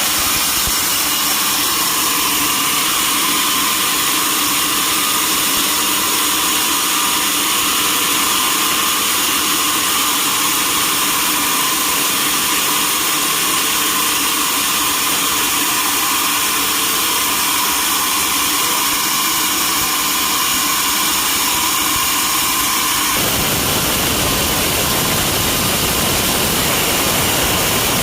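Sawmill saw running loudly and steadily: a constant hiss with a high whine. About 23 seconds in, a deeper noise joins in and holds.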